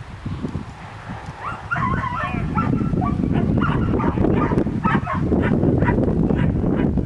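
Herding dog barking and yipping in quick, short calls as it works a group of steers, over a steady low rumble of wind on the microphone that starts about two seconds in.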